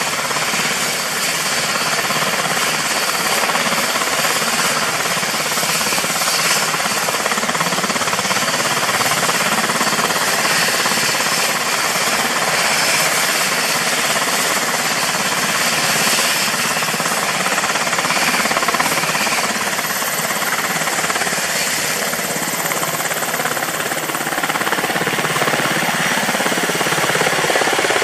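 UH-60JA Black Hawk helicopter running on the ground with its rotors turning: a rapid, even chop of the main rotor blades over the twin turbine engines and a steady high whine.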